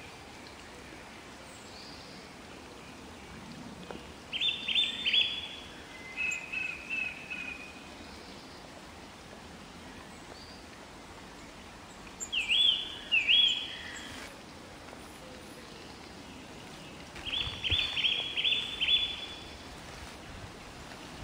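Common blackbird calling in four bursts of short, sharp notes in quick series. The notes come about four seconds in, again a couple of seconds later on a lower pitch, about twelve seconds in, and a longer run near the end, with a faint steady hiss between them.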